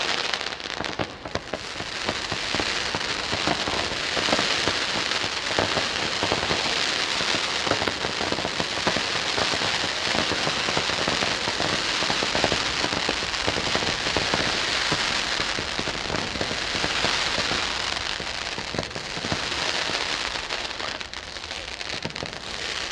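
Ground-level firework fountains giving off a continuous hissing crackle, a dense spray of small crackles. It dips briefly about a second in and eases off a little near the end.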